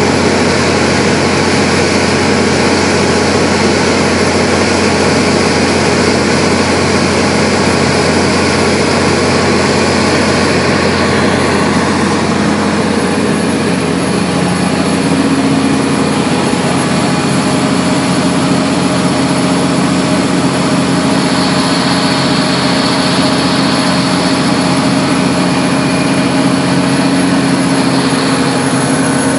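Atlas Copco XRHS 366 portable diesel air compressor running steadily at close range, supplying compressed air to blow out a water well. The machine noise is loud and even, with a low hum, and its tone changes slightly about halfway through.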